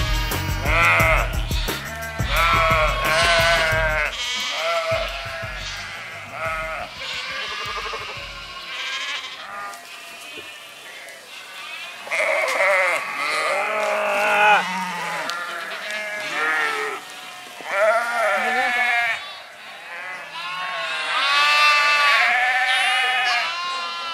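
A mixed flock of sheep and goats bleating: many wavering calls one after another and overlapping, some high-pitched, thickest near the end.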